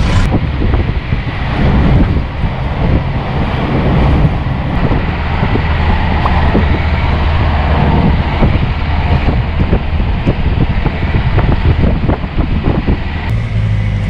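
Songthaew pickup truck under way, heard from its open-sided rear bench: engine and road rumble with wind buffeting the microphone. Near the end the sound changes to a steadier, lower engine hum with little wind.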